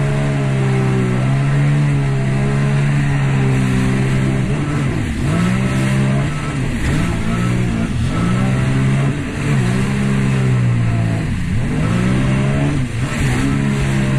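Sea-Doo Spark Trixx jet ski's three-cylinder engine running hard under a rush of wind and spray. After a steadier first few seconds, the pitch drops and climbs again over and over as the throttle is let off and reapplied through turns and chop.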